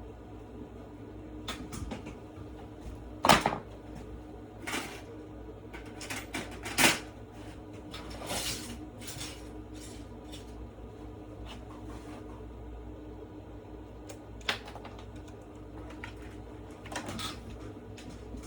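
Irregular clicks and knocks of a computer mouse and keyboard being handled and tapped, two of them louder, over a steady low hum.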